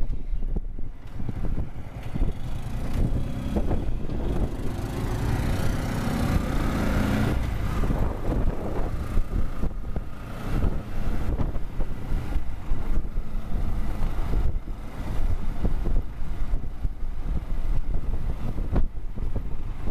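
Motorcycle engine running under way, mixed with wind buffeting the microphone on the fuel tank, a continuous rough rumble.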